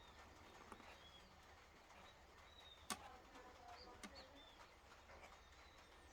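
Faint bird chirps and short whistled calls in the background over a low steady hum, with a single sharp click about three seconds in.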